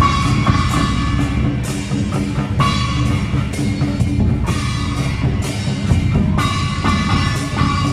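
Temple procession drum troupe playing: heavy drumming with crash-like cymbal or gong strokes about once a second, over a steady layer of music.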